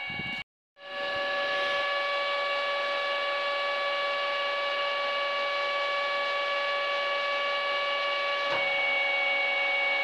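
LPG (autogas) dispenser pump running during a 40-litre fill: a steady hum made of several fixed whining tones. Its tone shifts slightly about eight and a half seconds in, as the count nears 40 litres.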